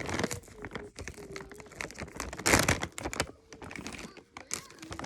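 Plastic snack bags crinkling and rustling as they are handled, with a run of small clicks and a louder rustle about two and a half seconds in.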